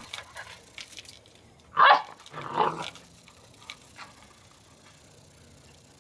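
Airedale Terrier puppy, 10 weeks old, giving two short barks in quick succession about two seconds in while playfully attacking a broom, with a few faint taps before and after.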